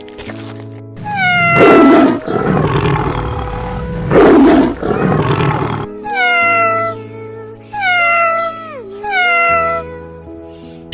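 A tiger roars twice, loud and rough, about a second and a half and four seconds in. A cat meows about five times between the roars and after them, each meow falling in pitch. Background music plays throughout.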